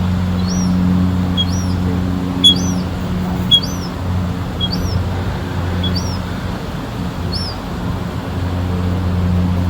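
A small bird chirping over and over, about one short rising-and-falling chirp a second, over a steady low hum. Two sharp clicks midway are the loudest points.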